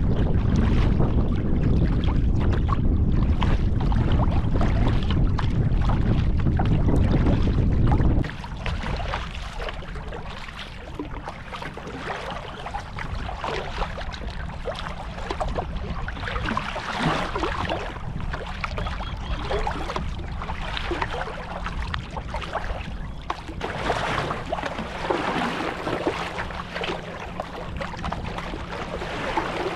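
Heavy wind buffeting the microphone, then about eight seconds in it cuts off suddenly, leaving choppy lake water slapping the kayak's hull and the paddle blades splashing in and out of the water on each stroke.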